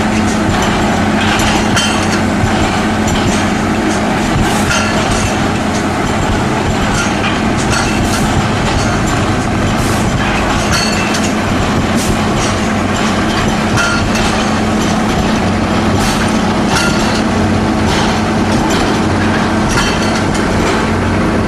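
PS400 hydraulic multiple-hammer concrete breaker at work: a steady engine drone under a continuous clatter of hammers striking concrete, with frequent irregular sharp knocks.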